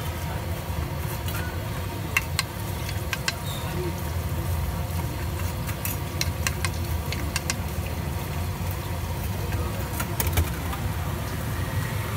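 Scattered sharp clicks of a knife tapping and cutting on a small wooden board while potato patties are shaped, over a steady low rumble of street traffic.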